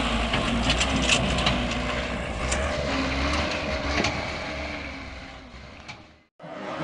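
Stuck dump truck's engine running under load, a low rumble with scattered clicks and crunches. The rumble fades away over the last couple of seconds, then the sound cuts off.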